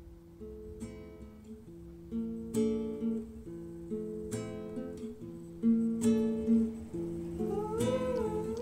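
Background music: acoustic guitar strumming chords. Near the end a pitched sound glides up and down over the guitar.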